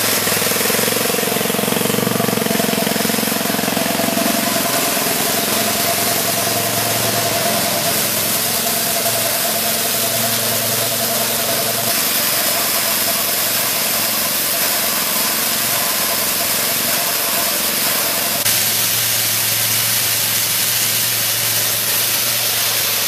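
A diesel engine runs steadily, driving a portable wheat and rice thresher, with a loud, even mechanical noise and no change in speed.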